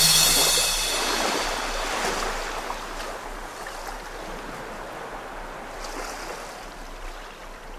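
Sea waves rushing and washing, slowly fading out.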